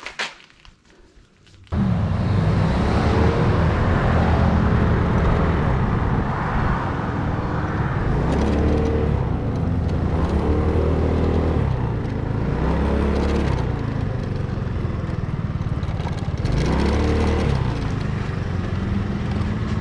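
Motor vehicle engine running, its pitch shifting up and down several times as the revs change, starting abruptly after a short near-silent gap.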